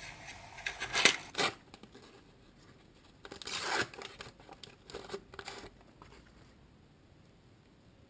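Shiny sticker packet wrapper torn open and crinkled by hand, in a few short bursts, the loudest about a second in.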